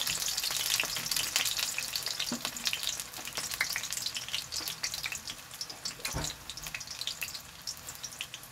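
Eggplant halves frying in hot oil in a metal pan: a steady sizzle full of quick crackles and pops from spattering oil, dying down gradually. A single dull knock about six seconds in.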